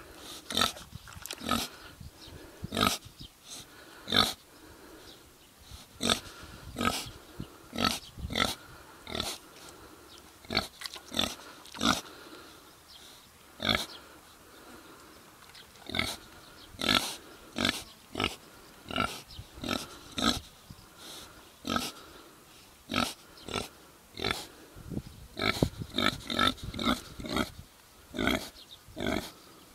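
Kune Kune pigs grunting over and over, short grunts coming one to two a second at an irregular pace.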